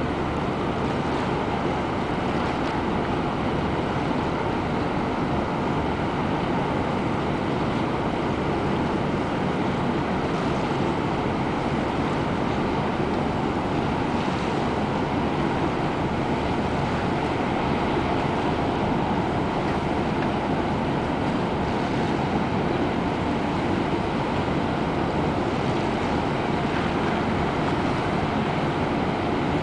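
Steady, unbroken drone of ship engines mixed with water noise, with no distinct events.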